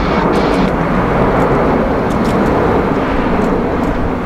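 Jet engines of an Airbus A350-900 (Rolls-Royce Trent XWB) running loud and steady as the airliner rolls on the runway for takeoff.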